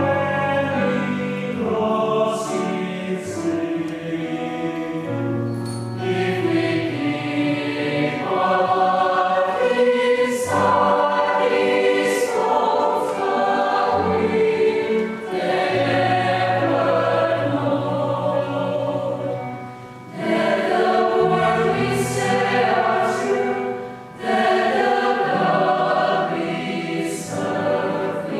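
Mixed choir of men and women singing in several parts, holding sustained chords, with two short breaks between phrases in the later part.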